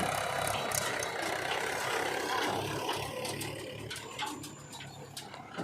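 Diesel engine of a backhoe loader or tractor running steadily, growing a little fainter in the second half, with scattered light clicks.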